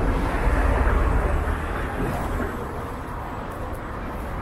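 A car driving past close by on wet asphalt: engine rumble and tyre noise, loudest in the first second and a half, then fading as it moves away.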